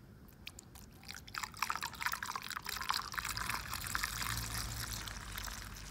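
Fuel poured through a plastic funnel into a small diesel engine's tank: a steady splashing trickle that begins about a second in and carries on, with drips spilling past the funnel.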